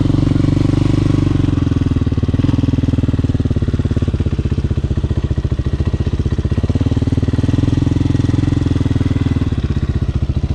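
Hawk 250 dirt bike's single-cylinder four-stroke engine running while ridden at low speed, its note rising and falling with the throttle, then easing to a slower, more distinct beat near the end.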